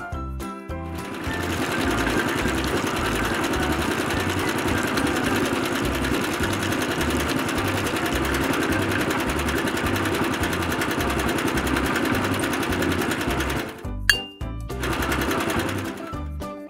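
Small electric model motor running steadily with a fast, buzzing whir; it starts about a second in and stops shortly before the end. Background music with a low beat plays under it.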